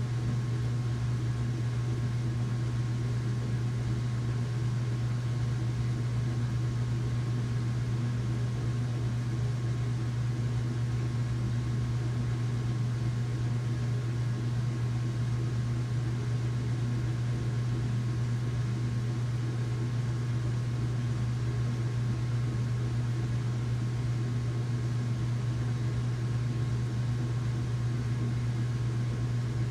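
Washing machine running with a steady low hum and a faint higher tone above it, unchanging throughout.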